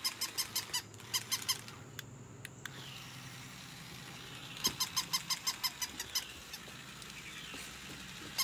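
Battery-operated toy puppy on a wired remote-control leash giving rapid, evenly spaced electronic yips, about six a second, in three bursts: at the start, briefly about a second in, and a longer run near the middle, over a low steady hum.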